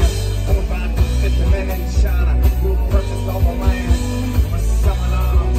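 Live acoustic band playing an instrumental passage: strummed acoustic guitars over a steady low beat.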